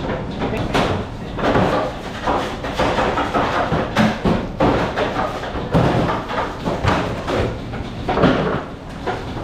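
Busy commercial kitchen clatter: frequent knocks, bangs and door or cupboard slams over a steady din.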